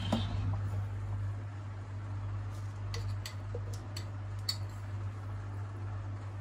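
A steady low hum, with a few faint ticks about three to four and a half seconds in as crushed Oreo cookie crumbs are poured from a bowl into a blender bottle.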